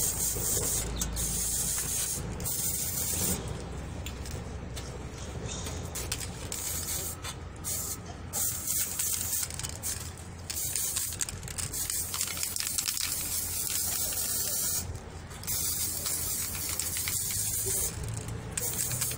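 Compressed air hissing from a hand-held spray gun on a hose, working over a bicycle frame in long bursts broken by short pauses.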